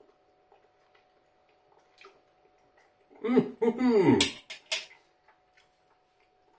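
A man humming a closed-mouth "mmm" of appreciation while chewing a mouthful of sweet and sour sauce. The hum starts about three seconds in and falls in pitch over about a second and a half, with two sharp clicks near its end.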